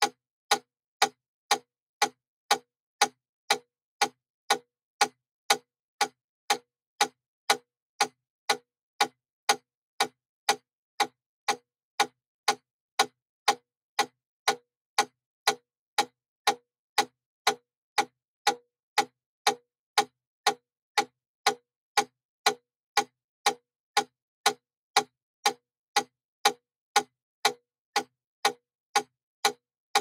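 Wooden mechanical metronome ticking at 120 beats per minute: sharp, even clicks, two a second, with silence between them.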